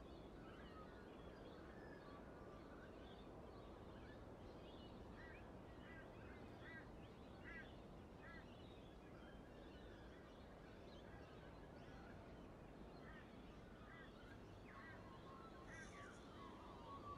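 Near silence: quiet room tone with birds faintly chirping in the background, many short repeated calls.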